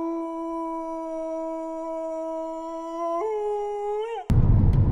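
A single sustained pitched tone, held steady, then stepping up to a higher note about three seconds in and bending upward before it cuts off abruptly. A car's low road rumble takes over just before the end.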